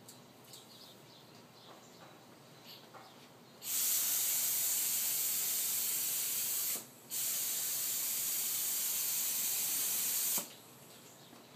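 Compressed-air gravity-feed spray gun hissing as it sprays activator over hydrographic film floating in a dip tank. About three seconds of spraying, a brief break, then about three more seconds, cutting off suddenly.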